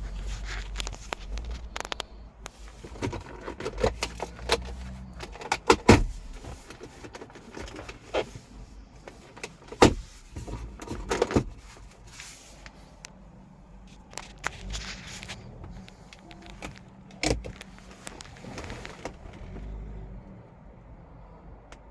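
Irregular clicks, knocks and thumps from a car's doors, latches and fittings being handled, a few of them sharp and loud, with a low rumble in the first few seconds.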